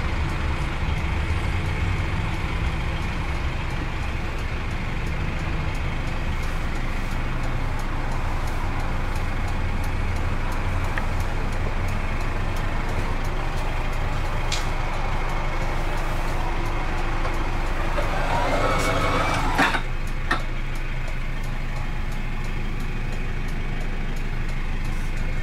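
Gazelle Next minibus engine idling, a steady low hum heard from inside the passenger cabin. About three-quarters of the way through there is a short scraping rustle ending in a click.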